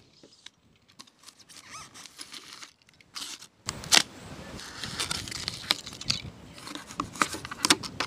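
Utility knife blade cutting through a block of polystyrene foam: irregular scratchy scraping and crackling with sharp clicks, starting about a second and a half in.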